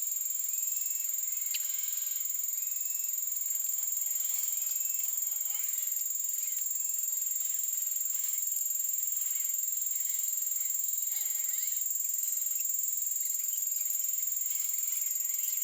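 Level-crossing warning bell, stuck ringing after a crossing fault, played back at about ten times speed, so its rings merge into a steady very high-pitched whine. Faint chirping from other sped-up sounds runs through it.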